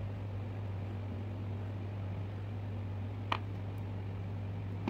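Steady low hum under hands working on a PVC-pipe motor housing, with one sharp click a little over three seconds in as pliers are used on the pipe.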